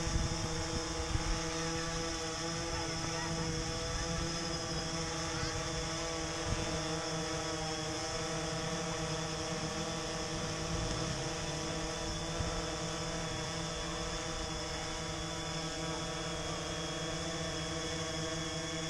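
DJI Phantom 3 Standard quadcopter hovering on Master Airscrew propellers: its four motors and props give a steady, many-toned whirring hum, with wind rumbling on the microphone underneath.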